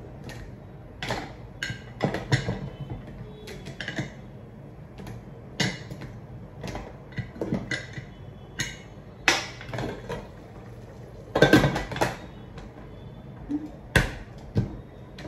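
Pressure cooker lid being fitted and closed, with scattered metal clinks and knocks as it is set and the whistle weight is placed on the vent. The loudest knocks come a little past two-thirds of the way in and again near the end.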